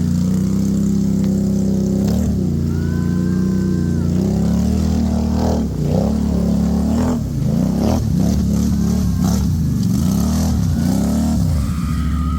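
ATV engine running at steady revs, then revving down and up over and over, about once a second, through the second half.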